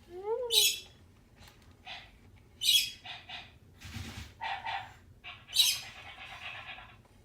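Sony aibo robot dog making its synthesized sounds while charging: a quick run of chirpy up-and-down tones, then three short hissing bursts, its sneezes, a couple of seconds apart, with softer electronic chirps between them.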